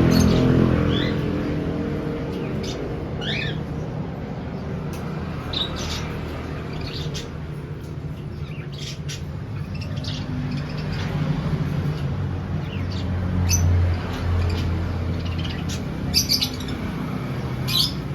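Pet birds giving short chirps and squawks now and then, with a falling call about three seconds in and a burst of calls near the end, over a low steady hum.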